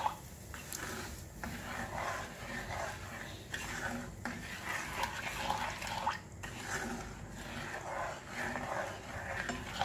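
Plastic spoon stirring sugar and water in a nonstick frying pan, a gritty swishing and scraping in repeated strokes as the undissolved sugar grains rub across the pan bottom.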